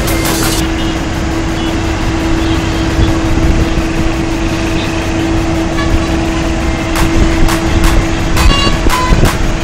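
Heavy trucks running on the road with passing traffic: a loud, steady rumble and roar, with one steady held tone throughout and a few sharp knocks in the last few seconds.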